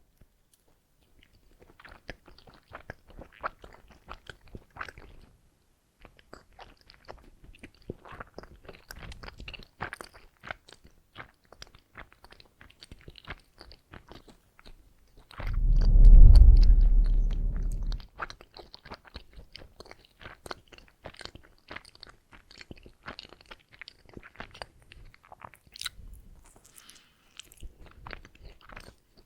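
Close-miked chewing of donuts: dense, irregular wet mouth clicks and soft crunches. About halfway through there is a much louder low-pitched swell lasting roughly two seconds.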